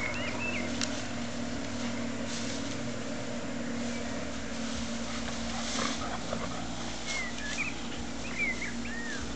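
Leafy pruned branches rustling and crackling as a dog tugs at them and drags them over grass, over a steady low hum. A few short high chirps come near the start and again near the end.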